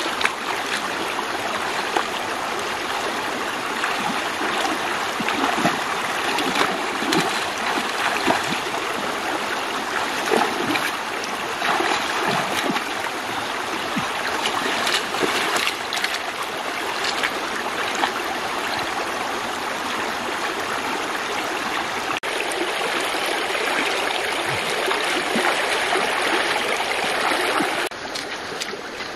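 Shallow river water rushing steadily over stones, with occasional small splashes as feet and hands move through the water.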